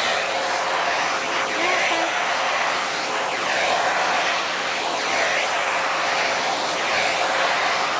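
Vacuum cleaner running steadily, its rush of air sweeping up and down in pitch about every second and a half, with a faint steady motor whine underneath.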